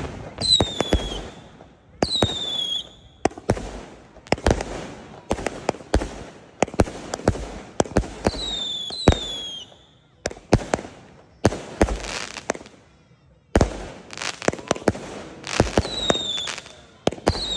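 An 88-shot firework cake firing its shells one after another: sharp launch bangs and bursts in quick succession, several shots carrying a whistle that falls in pitch. There are short lulls about ten and thirteen seconds in.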